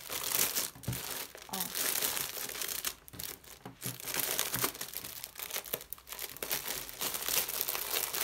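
Clear plastic packaging bag crinkling and rustling as crocheted placemats are slid into it and the film is handled, in irregular crackles with a short lull about three seconds in.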